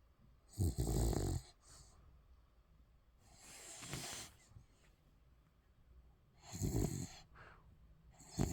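Sleeping Spitz puppy snoring: a rough snore every few seconds, loud ones about a second in, near seven seconds and at the end, with a softer breath around four seconds.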